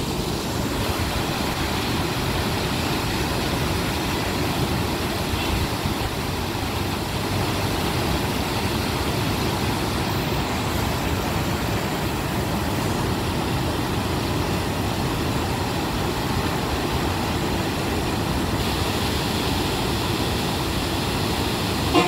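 Water gushing through the arched sluice openings of a bridge into a river: a steady, unbroken rush of turbulent white water.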